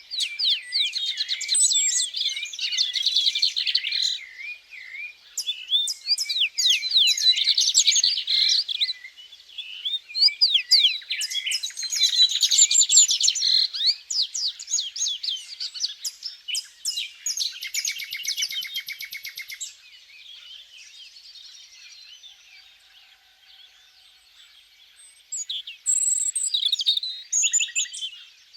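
Small songbirds singing: rapid twittering and warbling phrases in bouts, quieter for a few seconds before a last burst near the end.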